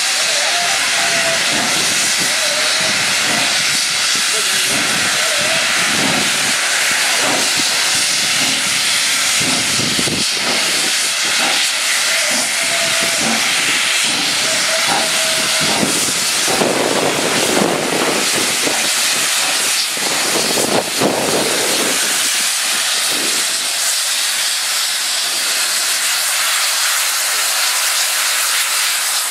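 Steam locomotive 3642, a NSWGR 36 class 4-6-0, hissing loudly and steadily as it lets off steam. A faint wavering tone comes and goes early on and again midway.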